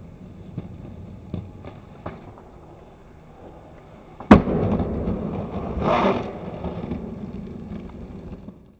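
Skateboard wheels rolling over pavement with a few light clicks, then a loud sharp clack about four seconds in followed by louder rolling and a second noisy burst. The sound cuts off suddenly at the end.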